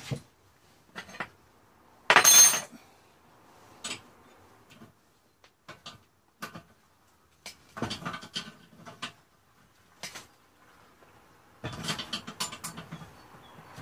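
Metal clinks, knocks and rattles from parts and tools being handled while the drive belt and pulley of a homemade wood lathe are worked on by hand. One louder scraping rattle comes about two seconds in, and there are quick runs of clicking about eight seconds in and again near the end.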